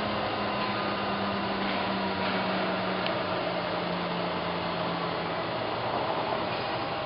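Sharp vertical mill's 3 hp variable-speed spindle head running with a steady whir; a hum in it slowly drops in pitch over about five seconds as the speed handwheel is turned to slow the spindle.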